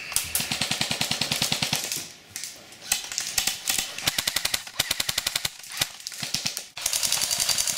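Airsoft guns firing in rapid full-auto bursts, a fast even clatter of shots: one long burst at the start, several shorter bursts in the middle, and another near the end.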